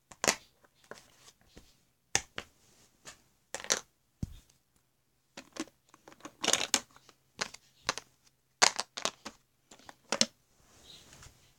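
Plastic lip balm tubes, pots and tins clattering against each other and the sides of a clear plastic storage box as a hand rummages through them, in irregular runs of clicks and knocks with short pauses.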